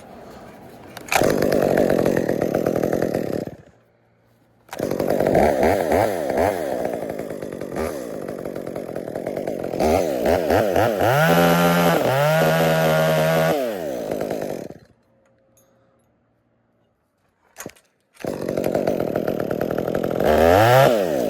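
Chainsaw running in three stretches that start and stop abruptly, its engine speed rising and falling as it cuts wood.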